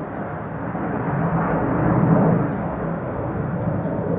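Jet noise from a Su-35 fighter flying low on afterburner: a loud, deep, rushing rumble that swells to a peak about two seconds in and then slowly fades.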